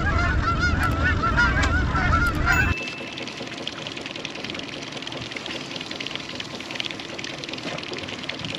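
A flock of geese honking in flight, many overlapping calls over a low wind rumble. About two and a half seconds in the honking stops abruptly, leaving a quieter steady rush of wind noise.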